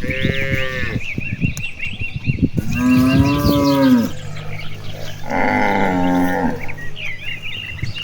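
Cattle mooing in turn: a short, higher-pitched call at the start, a long low moo about three seconds in, and another moo around five to six seconds in. Small birds chirp between the calls.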